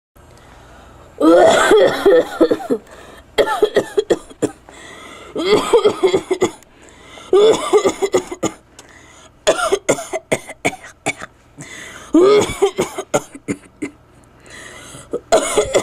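A person in a long, unbroken coughing fit: seven harsh bouts of several coughs each, about two seconds apart, starting about a second in. It is the chronic cough of a smoker with lung disease.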